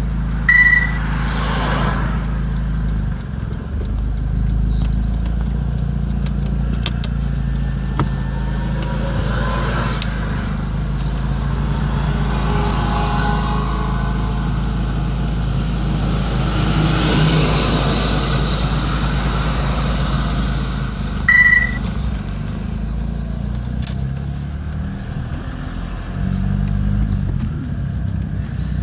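Street traffic: a truck drives past, swelling and fading across the middle, over a steady low engine hum. A short, high beep sounds about half a second in and again about 21 seconds in.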